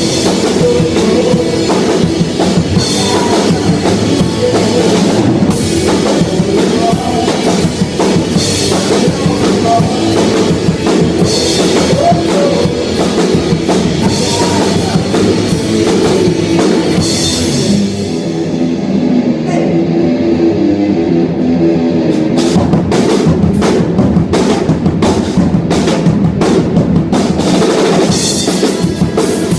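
Live rock band playing, with drum kit and guitar. About eighteen seconds in, the cymbals drop out for a few seconds, then the drums come back in with hard, repeated hits.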